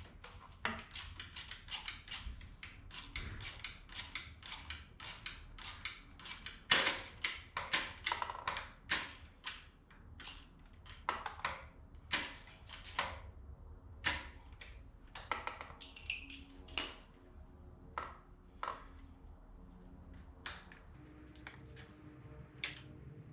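Hand ratchet clicking as a bolt is turned by hand, a long run of sharp metallic ticks several a second, coming in uneven bursts.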